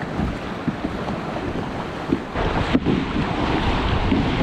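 Sea water slapping and splashing around a sea kayak's hull, with wind buffeting the microphone; a little over two seconds in it grows louder, with paddle splashes close by.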